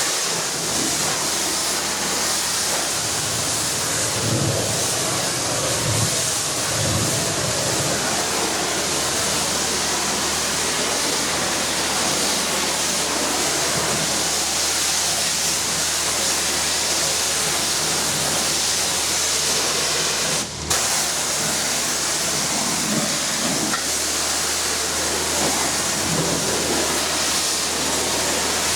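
High-pressure washer wand spraying water in a steady, loud hiss, which cuts out very briefly about two-thirds of the way through as the trigger is let go.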